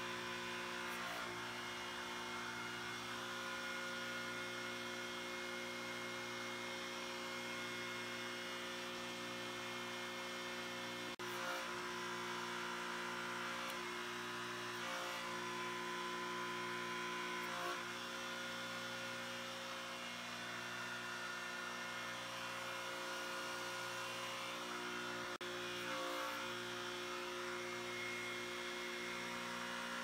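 Steady electric hum of the hydraulic power unit driving a guillotine crimping tool as it slowly squeezes a steel pipe flat, with three faint clicks spread through.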